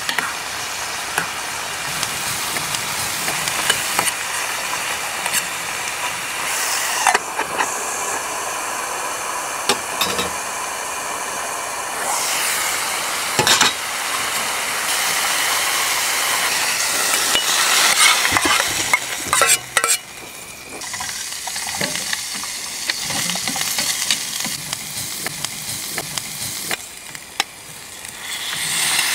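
Beef frying in hot oil in a small camping pot on a gas-canister stove: a steady sizzle with the clicks and scrapes of a utensil stirring against the metal. The sizzle grows louder near the end as the meat is tipped into a pan of onions.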